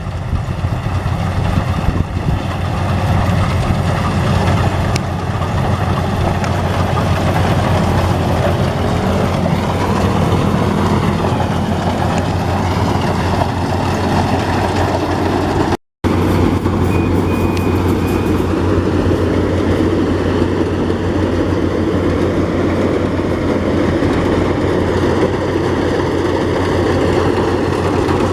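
Yanmar AW82V combine harvester running steadily at working speed, a continuous loud machine drone. The sound cuts out for a moment just past halfway, then carries on.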